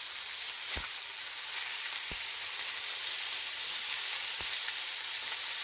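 Fish fillets sizzling steadily in hot olive oil in a frying pan, searing on high heat, with three brief clicks spread through.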